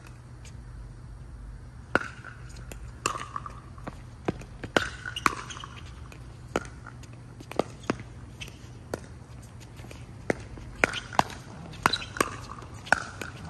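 Pickleball rally: sharp pops of paddles striking a plastic ball, mixed with bounces on the hard court. The hits are irregularly spaced, begin about two seconds in, and come quicker in the last few seconds as the players volley at the net.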